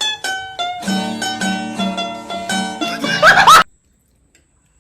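Short burst of music in plucked-string notes, a few single notes and then a quicker, fuller run with notes sliding upward near the end, cut off suddenly about three and a half seconds in, followed by silence.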